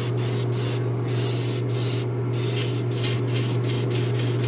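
Gravity-feed airbrush spraying paint, a steady hiss broken by brief stops as the trigger is let off and pressed again, over a steady low hum.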